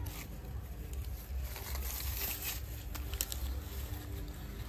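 Dry banana leaf and banana-fibre string rustling and crackling as the strings are wound and tied around a banana-leaf ring, in scattered short crackles that cluster in the middle.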